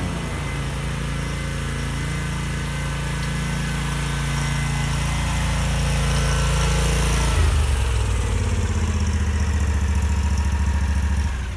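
The Kawasaki FS481V V-twin engine of an Exmark Turf Tracer hydro walk-behind mower running steadily as the mower is driven up close, growing louder. Near the end the engine is shut off and its sound dies away.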